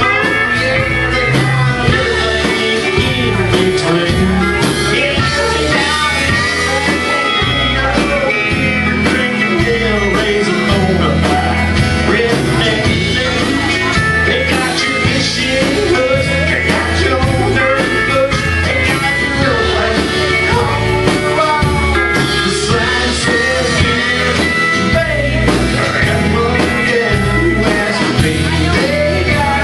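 Live band playing a song at full volume: drums keeping a steady beat, electric bass, guitars and a pedal steel guitar.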